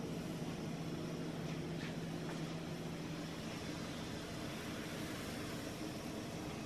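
Steady hum and hiss of a kitchen fan motor. A few even low tones run under an even hiss.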